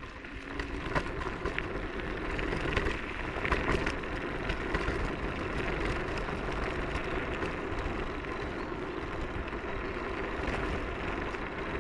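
Techlife X7S electric kick scooter riding over a rough trail: a steady rumble of the tyres with many small rattles and knocks, building over the first couple of seconds.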